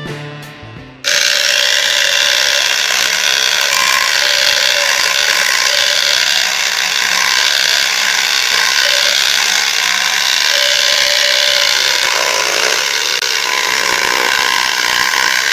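Homemade electric jigsaw running and cutting wood: a loud, steady mechanical rattle that starts abruptly about a second in, as guitar music ends.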